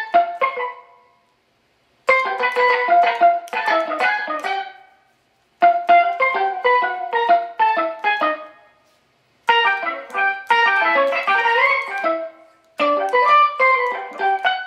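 Electric guitar played staccato with palm muting through an octave-up pitch shifter blended with the dry signal (Digitech Whammy V), overdrive and plate reverb, giving a steel drum-like tone. Four quick runs of short, pinging notes, each with a brief pause after it.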